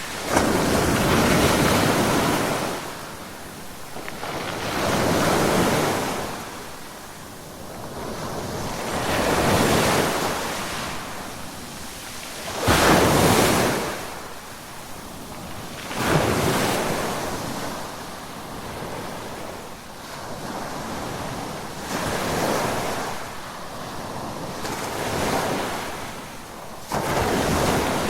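Ocean waves breaking and washing in on the shore, a surge of surf every few seconds that swells and fades. Several waves land with a sudden crash: near the start, about halfway through, and near the end.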